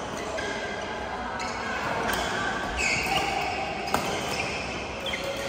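Badminton play: sneakers squeaking briefly on the court floor several times, and one sharp crack of a racket hitting the shuttlecock about four seconds in.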